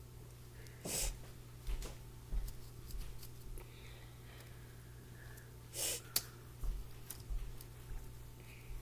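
Scattered short rustles and light clicks of hands handling wooden tongue depressors and a rubber band, over a steady low hum, with one sharper click about six seconds in.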